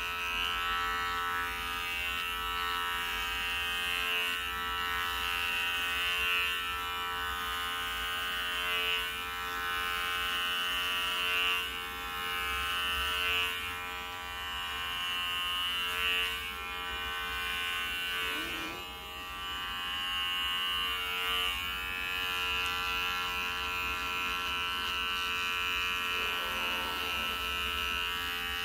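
Electric hair clipper buzzing steadily as it shaves a head down close, with small dips in level now and then.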